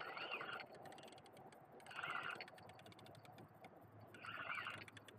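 A frog calling three times, about two seconds apart. Each call is short and faint, rising and falling in pitch, over faint rapid ticking.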